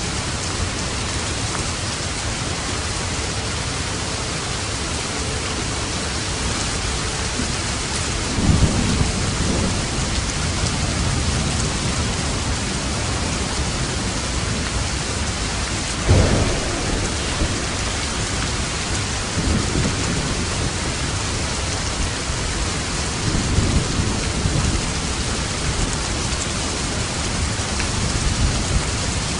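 Steady rain falling, with several soft rolls of distant thunder; the sharpest, loudest one comes about halfway through.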